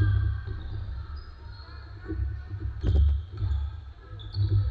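A basketball bouncing on a hardwood gym floor several times at an uneven pace during play, with a sharper hit about three seconds in. Sneakers squeak on the floor in short high tones.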